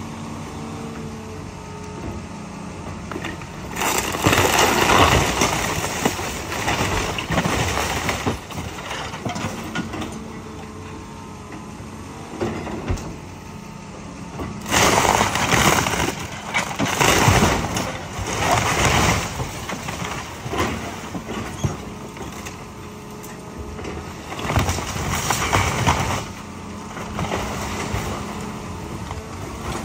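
A John Deere excavator's engine runs steadily while its bucket tears into a wooden house. Three long spells of crashing timber and roofing debris come through: one a few seconds in, a longer one around the middle, and a shorter one later on.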